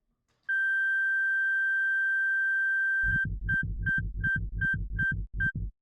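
Electronic beeper, likely the field's game timer: one long steady beep of about two and a half seconds, then rapid short beeps at the same pitch, about four a second, each with a low thump under it.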